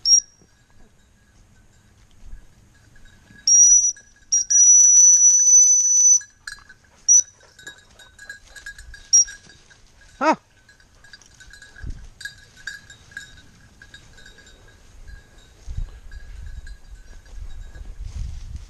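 Hunting-dog collar bells jingling as springer spaniels work the brush. A near, high bell rings loudly in bursts, with a long run of rapid strokes about four to six seconds in, while a lower, fainter bell further off keeps jingling unevenly.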